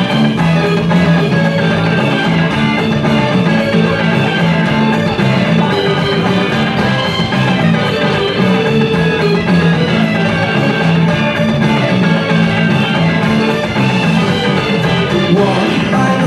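Loud rock music with guitar, playing continuously: the backing track for a yo-yo freestyle routine.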